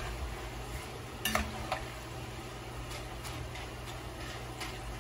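Shoestring potatoes frying in hot duck fat in a pot, a steady sizzle, while a metal skimmer stirs them and scrapes against the pot, with a couple of sharp clicks about a second and a half in.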